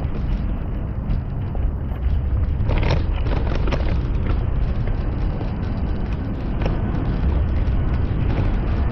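Steady low rumble of a Cybex Gazelle S stroller's wheels rolling along a concrete sidewalk, with a short run of clicks and rattles about three seconds in.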